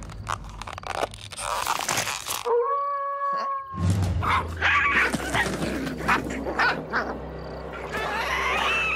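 Cartoon sound effects: scuffling and clicking noises from the animated creatures, with one pitched, whimpering cry lasting about a second, about two and a half seconds in, and a rising squeaky cry near the end.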